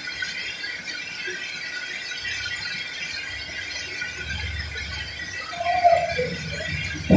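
Sawmill workshop machinery running with a steady hiss, a low rumble building from about two seconds in, and brief squeals near the end.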